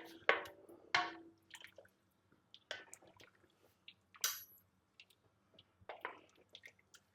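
Irregular clicks and knocks of kitchen utensils and containers at the soup pot while stock is being added, one early knock ringing briefly.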